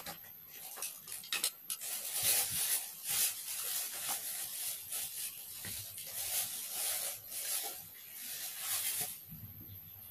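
Close rustling and rubbing in irregular strokes, like clothing or foliage brushing near the microphone. It starts about a second in and stops about nine seconds in.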